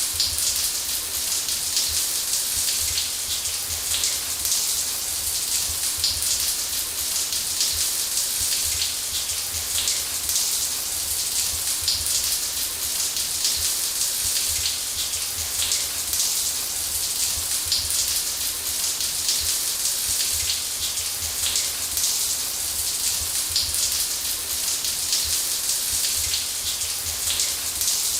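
Shower running steadily: a dense, even hiss of water spray with many small droplet hits and a low rumble underneath.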